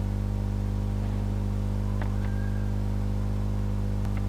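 Steady low electrical hum with a buzzy series of overtones, carried by the recording between spoken lines; a faint click sounds once, near the end.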